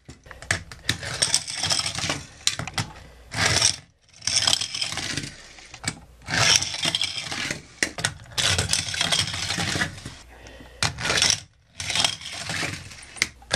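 Die-cast toy cars rolling down the plastic ramps of a toy car transporter and out across the floor, a string of rattling rolls of a second or two each, with clicks as the cars are set down and knock against the plastic.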